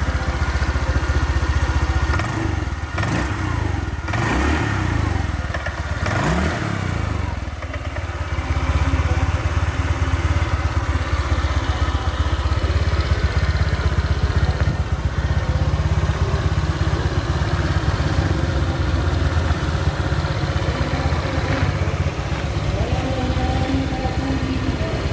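Honda Vario 125 scooter's single-cylinder fuel-injected engine running after a rebuild with a new piston and rings and an oversize bore. It is revved up and down a few times a couple of seconds in, then settles to a steady idle.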